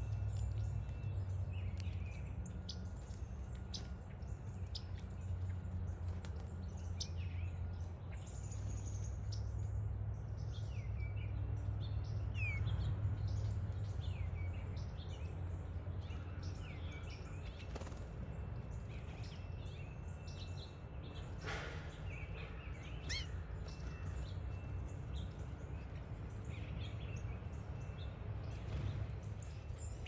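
Small wild birds chirping and calling on and off in short, scattered notes over a steady low rumble.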